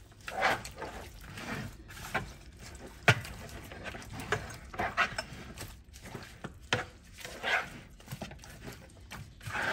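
Seasoning being mixed into food by a gloved hand in a bowl: irregular squishing and rustling, with two sharp knocks, about three seconds in and about seven seconds in.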